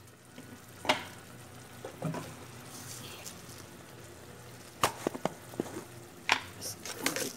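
Abalone strips simmering and sizzling in chili sauce in a nonstick frying pan, a steady low hiss. Several sharp clicks and knocks sound over it, with a quick cluster about five seconds in and more near the end.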